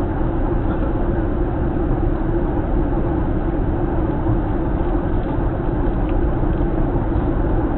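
Steady cabin noise of a Boeing 737-900 airliner on final approach: engine and airflow rumble with a constant hum underneath, unchanging throughout.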